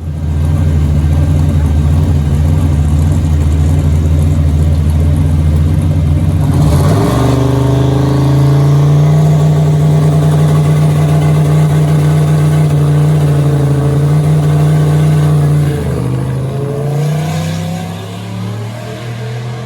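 Drag car's engine running loud at high, steady revs, stepping up in pitch about seven seconds in, holding there, then falling away about sixteen seconds in as the throttle comes off.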